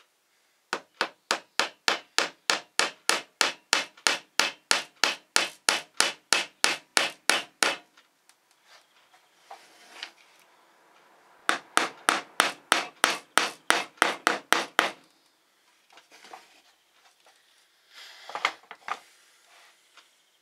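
Small hammer tapping a nail through a wooden disc into a wooden board: a steady run of light strikes, about four a second, for some seven seconds, then after a pause a second run of about three seconds. Softer knocks and rubbing of wooden pieces being handled near the end.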